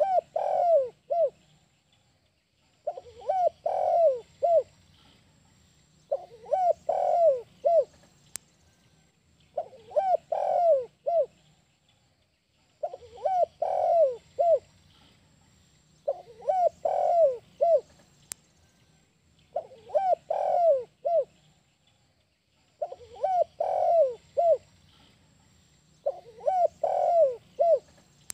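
Spotted dove (tekukur) cooing its 'kuk 1' call over and over: a short phrase of a few notes, repeated about every three seconds with a pause between phrases.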